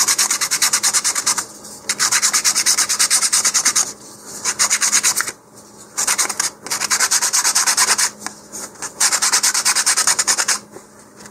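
100-grit sandpaper rubbed by hand around the edge of a wooden motor-mount centering ring, in quick back-and-forth strokes, several a second. The strokes come in runs broken by short pauses and stop near the end. The ring is being sanded down because it is still too snug in the body tube.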